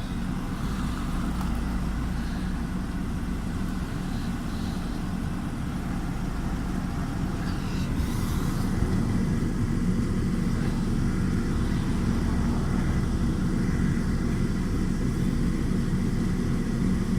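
Nissan Almera N15 running with a steady low hum.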